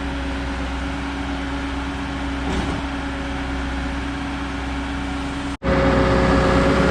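A truck's diesel engine runs steadily with an even hum. Near the end the sound cuts off abruptly and resumes as a louder engine with a higher steady tone.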